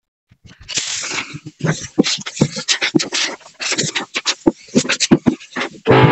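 Compressed-air paint spray gun spraying primer in short, uneven hissing bursts as the trigger is worked.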